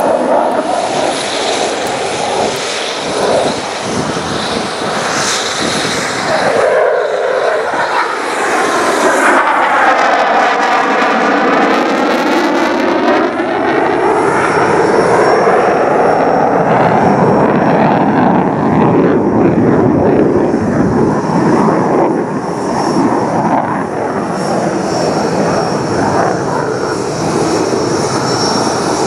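Loud, continuous jet noise from an F/A-18F Super Hornet's twin General Electric F414 afterburning turbofans as the fighter flies overhead. Between about seven and thirteen seconds in, the roar takes on a sweeping, phasing swirl that dips in pitch and rises again as the jet passes.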